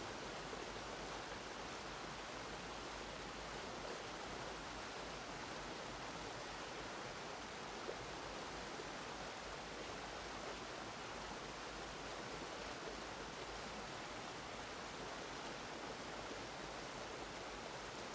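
Steady, even rushing of a recorded waterfall ambience, with no breaks or changes.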